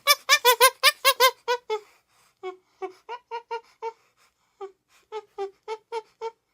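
Common chimpanzee giving a rapid series of short, high calls: about five a second and loud for the first two seconds, then softer and slower, with a brief pause midway.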